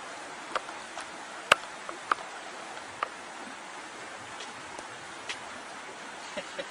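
Steady hiss of water with scattered sharp clicks, the loudest about a second and a half in.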